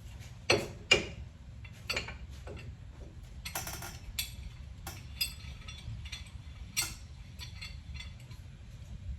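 Scattered metallic clicks and clinks of hand tools and brake parts being handled while an old brake pad is set against the caliper piston to compress it; the two loudest knocks come about half a second and a second in. A steady low hum runs underneath.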